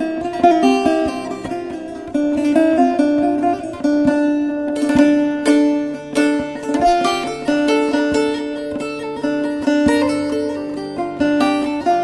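Instrumental passage of a Turkish folk song (türkü) played on a plucked string instrument, a melody of quickly struck notes with no singing.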